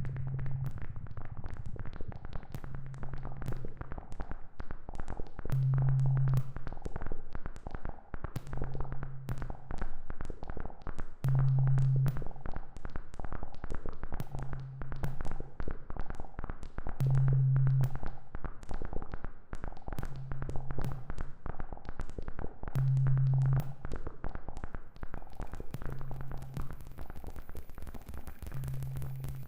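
Synthesized electronic sound from a Reaktor software synthesizer: dense crackling clicks over a low tone that pulses about every three seconds, every other pulse louder.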